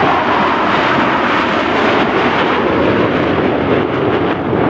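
Loud, steady jet engine noise from Blue Angels F/A-18 Super Hornets flying their display.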